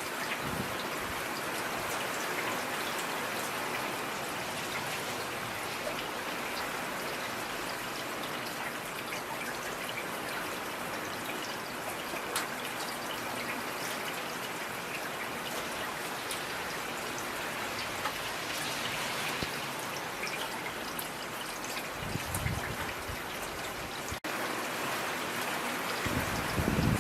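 Steady rain falling, an even hiss flecked with individual drops ticking. A brief low rumble comes about twenty-two seconds in and again near the end.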